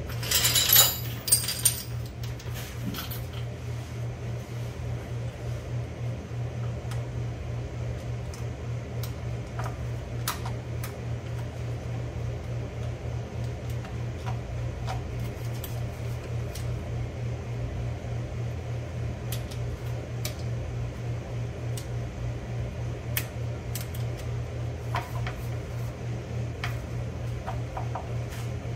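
Steady low fan hum with a fast flutter throughout. About a second in there is a short metallic clatter of tools, then scattered light clicks and taps from hand work on the truck's underside.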